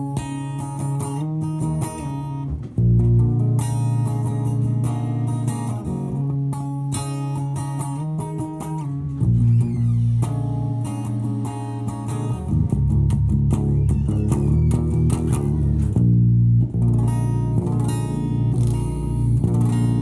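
Background music led by guitar, with a bass line under it and a steady rhythm.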